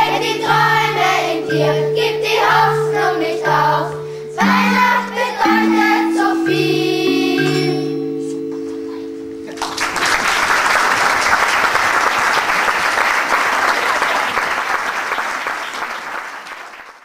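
Children's choir singing over held instrumental chords and a repeating low bass note. The song ends about ten seconds in and is followed by applause, which fades out near the end.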